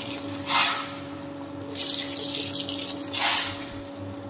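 Cooked vegetable dal ladled into hot oil and ghee tempering in an iron karai, hissing and sizzling in three surges as each ladleful hits the pan.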